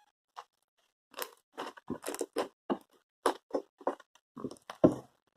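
Homemade slime being squeezed and worked by hand: a string of short, irregular clicks, about two or three a second.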